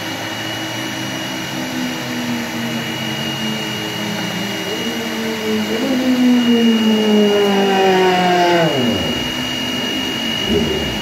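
A steady mechanical whine with a constant high whistle runs throughout. About halfway through, a motor's pitched drone swells, sinks slowly in pitch, then winds down steeply and stops about nine seconds in.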